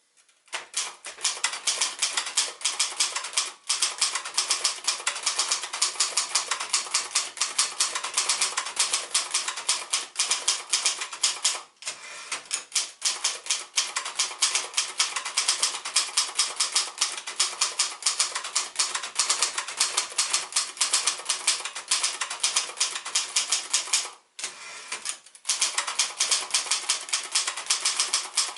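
1972 Royal Mercury manual portable typewriter, made by Silver-Seiko, being typed on fast: a steady stream of sharp key strikes, several a second, broken by short pauses about 4 and 12 seconds in and a longer one about 24 seconds in.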